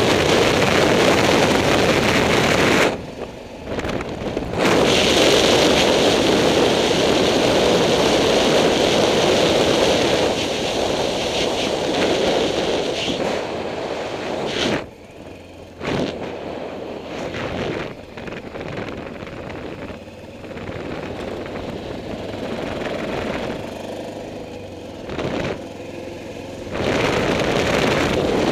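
Wind rushing over the microphone of a moving motorcycle, with the motorcycle's engine running underneath. The wind noise drops briefly twice and is quieter through the second half.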